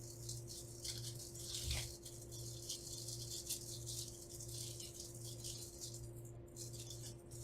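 AA batteries and a small plastic quadcopter transmitter being handled, with a rapid, irregular run of light clicks and rattles as the batteries are tried in its battery compartment. The batteries look a little too big for it, so it probably takes AAA.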